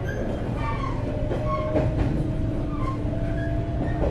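JR West 475 series EMU heard from inside a motor car: the MT54 traction motors whine, the pitch rising slowly as the train gathers speed, over a steady rumble of wheels on rail. A couple of sharp clacks come from the wheels crossing rail joints.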